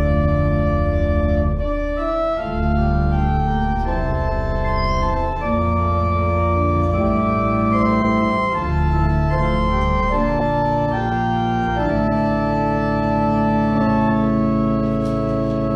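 Organ music: a closing postlude of held chords over deep bass notes, the chords changing every second or two.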